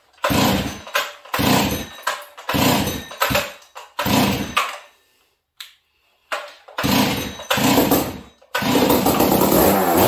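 Newly built Stihl 038 two-stroke chainsaw being pull-started cold: a run of rasping recoil-starter pulls with the engine turning over but not catching, then about eight and a half seconds in it fires and keeps running steadily. The builder puts the hard cold start down to running lean on the low-speed jet or a choke issue.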